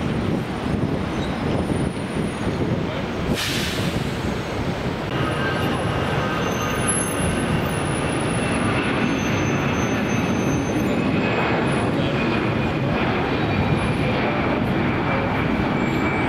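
Airbus A320-family jet airliners' engines at takeoff thrust: a steady roar with a short hiss about three seconds in, then a high whine that drifts slowly lower in pitch.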